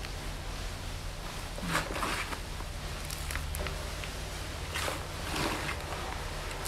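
Hands scooping and pressing chunky potting mix of pine bark and LECA clay pebbles around a plant's roots in a wire mesh pot: intermittent short dry rustles and crunches. Near the end the hands are rubbed together to brush off the mix.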